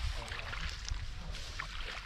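Shallow muddy water sloshing and splashing in short, irregular splats over a steady low rumble.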